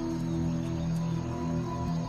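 Background music: a soundtrack score of sustained low held notes.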